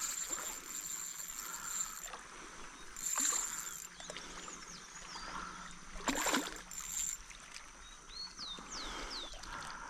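Water splashing in a few short bursts, with birds chirping now and then near the end.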